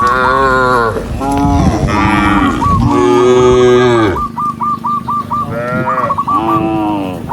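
Cattle mooing: several long, loud moos one after another, overlapping at times, with a short gap past the middle before two more.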